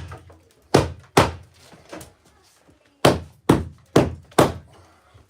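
Hammer driving a nail: two sharp blows about a second in, then four more in quick, even succession from about three seconds in.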